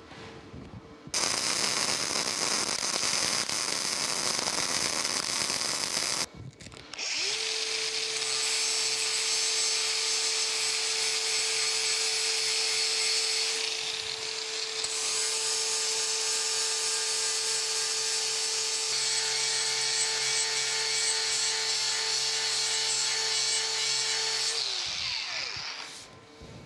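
MIG welder laying a weld bead on a steel bracket, a steady crackling sizzle for about five seconds. After a short pause a DeWalt angle grinder starts and grinds the welds down with a steady whine for about eighteen seconds, then spins down near the end.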